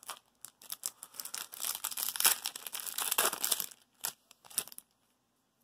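Magic: The Gathering booster pack wrapper being crinkled and torn open. A few light crackles come first, then a dense crackling tear runs for about two seconds, starting about a second in. A couple of single crinkles follow.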